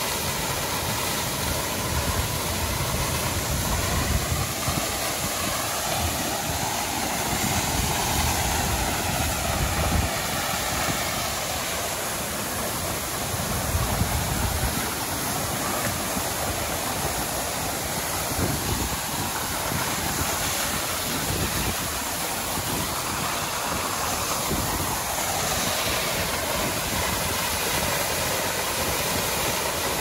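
Steady rush of a waterfall, with occasional low thuds.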